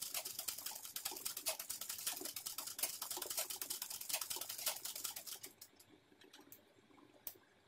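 Domestic sewing machine running, stitching embroidery: a rapid, even clicking of the needle going up and down. It stops about five and a half seconds in, leaving only a few faint clicks.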